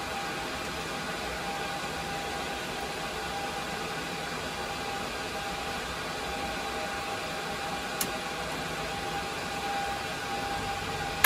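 Steady whir of the cooling fans in running rack-mounted servers and network switches, with a faint steady whine, and a single sharp click about eight seconds in.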